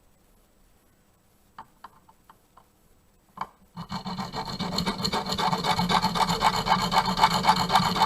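Hand file rasping on a blank key, cutting the last two cuts of a new key, in quick repeated strokes that start about four seconds in. Before that there are a few light clicks and a single knock.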